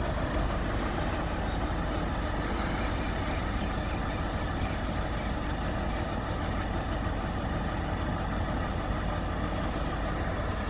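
A 2.5-litre diesel engine of a Nissan NV350 Caravan idling steadily, a low even hum with no change in speed.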